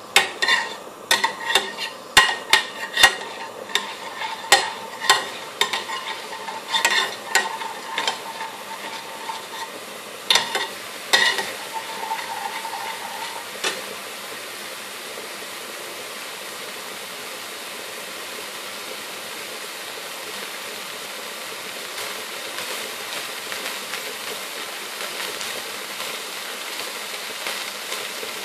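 A metal spoon stirring and clinking against an aluminium pan, the clinks ringing, over garlic and ginger paste sizzling in hot oil. The spoon strikes stop about halfway through, leaving a steady sizzle that grows a little louder toward the end.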